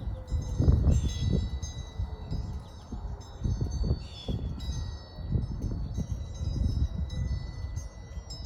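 Wind chimes ringing irregularly, with many high tones struck and fading, over gusts of wind rumbling on the microphone.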